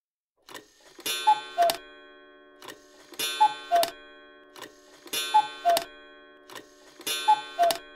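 Cuckoo clock striking the hour: four two-note falling calls about two seconds apart, each with clicks and a ringing strike, marking six o'clock in the morning.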